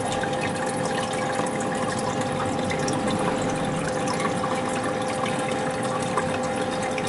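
Aquarium pump and filter running: water trickling and bubbling steadily in a fish tank, over a steady hum.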